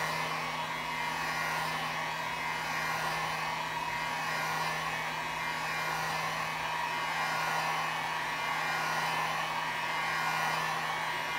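Drill Master electric heat gun running steadily on its low setting, a fan rush over a steady hum with a slow, regular waver. It is being passed over wet epoxy resin on a tumbler to even the coat and pop bubbles.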